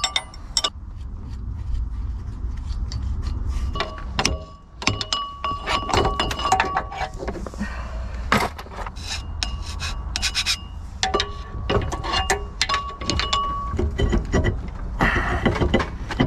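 Scraping, rubbing and clinking on metal as a chewed-up brass freeze plug is cleaned, with many sharp taps and short ringing notes over a low steady rumble, and a longer burst of scraping near the end.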